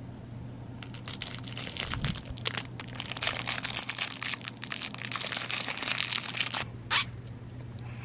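Thin plastic candy-cane wrapper crinkling and tearing as it is handled and opened: a dense run of crackles for about six seconds, then one short crackle near the end.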